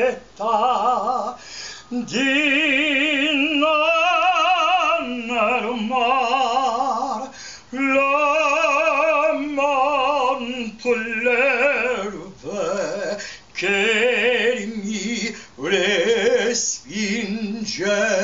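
A woman singing an operatic aria solo, with no accompaniment, in a full voice with wide vibrato. Long held notes are broken by short breaths.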